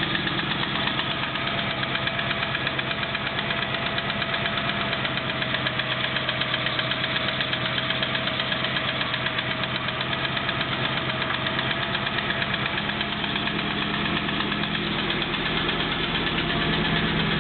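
Triumph Stag 3.0-litre V8 running steadily after a cold start, with a fast, even pulsing and a knock from cold that the owner is trying to trace.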